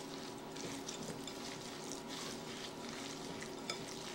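Hands kneading a wet raw ground-beef mixture with yogurt and egg in a glass bowl: soft, irregular squishing.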